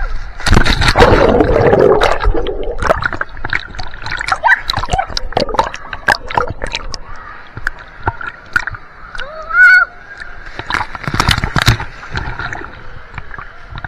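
Water splashing and sloshing in a swimming pool, with irregular splashes and knocks and two louder bouts of splashing, just after the start and again about eleven seconds in.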